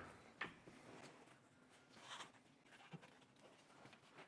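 Near silence, broken by a faint click about half a second in and a few faint rustles.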